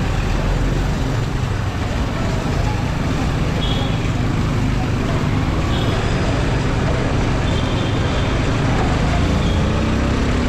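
Steady city traffic noise heard from a motorcycle moving slowly through congested traffic: a constant low rumble of engines running, with minibus taxis and motorbikes close around.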